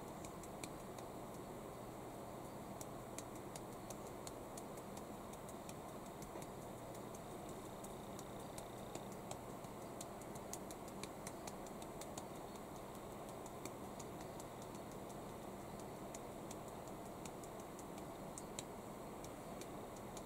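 Quiet room tone with a steady low hum and hiss, dotted with faint, irregular small clicks and ticks, several a second at times.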